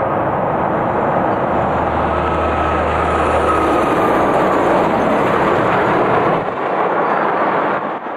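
Diesel locomotives of a loaded cattle train approaching, engines running with a steady, loud noise. A faint high whine drifts slightly lower through the middle, and a low steady note sounds for a couple of seconds early on.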